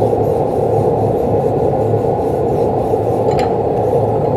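Hand wire brush scrubbing back and forth across a fresh fillet weld bead between stainless and carbon steel plate, a steady, muffled scratching, with a faint click about three seconds in.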